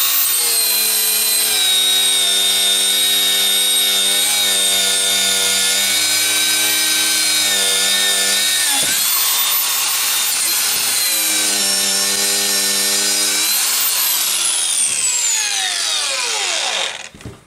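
4.5-inch angle grinder with a wire wheel spinning up and scrubbing rust off a steel axe head: a steady high whine with a brief dip in pitch about nine seconds in, then winding down with falling pitch over the last few seconds. The wire wheel burnishes the rust rather than cutting below it.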